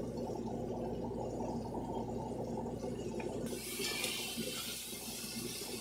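Food frying on the stove: a steady low crackle of sizzling butter and vegetables, joined from about three and a half seconds in by a brighter hiss as the peppers, onions and mushrooms are stirred in the hot cast-iron skillet.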